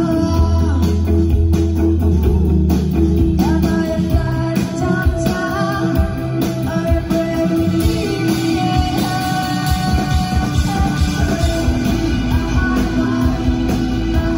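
Rock band playing live through a PA, heard from the audience on a phone: electric guitars and drums driving a steady rhythm, with a sung vocal line over them.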